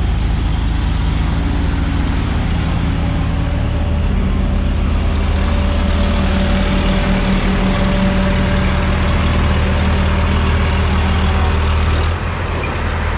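Diesel engines of ACE Hydra mobile cranes running loud and steady, the engine note growing stronger about four seconds in. Near the end the sound abruptly becomes quieter and thinner.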